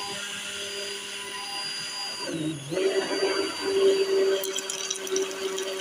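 Electric immersion hand blender whirring as it beats thick yogurt. Its pitch dips briefly about two and a half seconds in, then it runs on louder.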